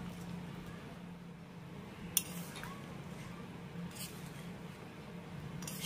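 Steel utensils clinking against a steel kadai as fried yardlong beans are tipped into a simmering gravy and stirred in: a sharp clink about two seconds in and a lighter one about four seconds in, over a low steady hum.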